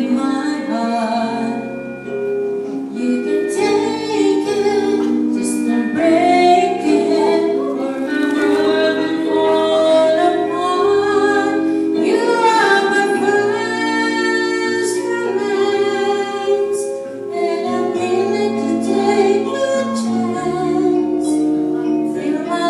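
A woman singing a song into a handheld microphone through an amplified sound system, over instrumental accompaniment with held chords and a bass line that changes note every second or two.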